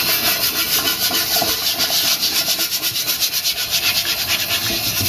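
Stiff dish brush scrubbing the speckled nonstick surface of a Starfrit The Rock stovetop griddle in quick back-and-forth strokes, with a little dish soap, under a running tap.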